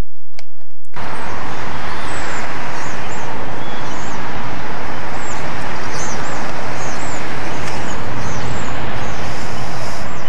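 Steady outdoor background noise, a loud even hiss and rumble, starting abruptly about a second in, with small birds chirping over it again and again.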